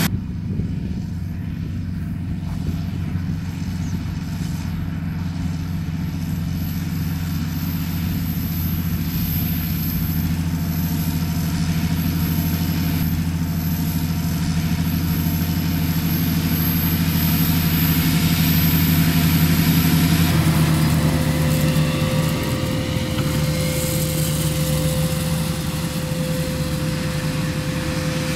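John Deere 8320R tractor's six-cylinder diesel running steadily under load while pulling a planter. About two-thirds of the way through, a steady higher whine joins the engine hum.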